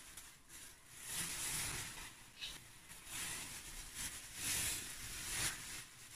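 Black plastic bin bag and clear plastic wrap rustling and crinkling as they are handled and pulled apart by hand, in several swells of rustle a second or so long.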